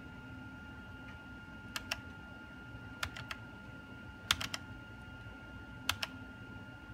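Laptop touchpad buttons clicked in quick groups of two or three, four times, as windows and dialogs are opened.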